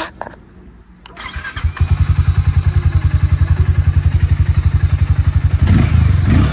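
Harley-Davidson X440 single-cylinder 440 cc motorcycle engine starting about a second in, then idling with a fast, even pulse. It gets louder near the end as the throttle is opened.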